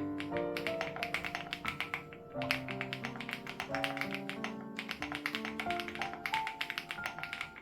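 Rapid typing on a Crush80 Reboot mechanical keyboard with HMX Hyacinth switches, a quick run of keystroke clacks with a short pause a little over two seconds in, over background music with sustained notes.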